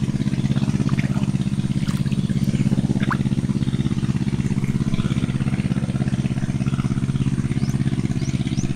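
A small engine running steadily at constant speed, with a fast, even beat.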